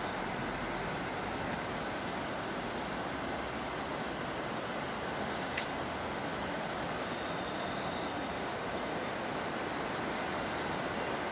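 The Bhagirathi, a fast mountain river, rushing steadily. There is a single faint click about halfway through.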